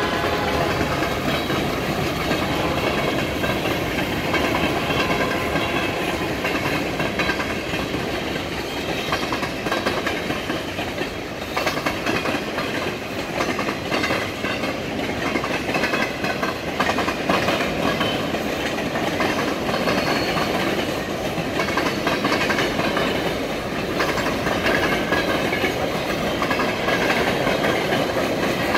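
Freight train cars rolling past at steady speed: steel wheels and car bodies rumbling and rattling on the track, with occasional sharp clacks.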